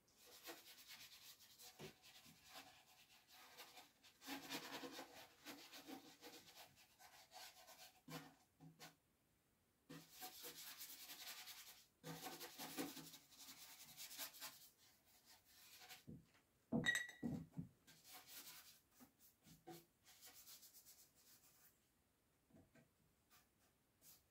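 Wood being sanded by hand in a series of rubbing strokes with short pauses between, with a couple of sharp knocks about two-thirds of the way in.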